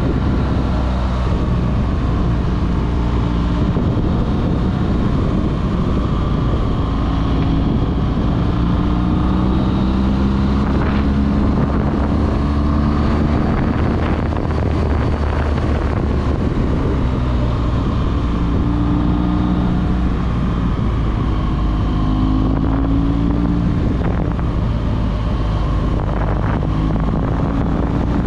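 BMW R1200GS Adventure's boxer twin engine running on the move, its pitch rising and falling several times as the rider opens and closes the throttle. Wind rushes over the microphone throughout.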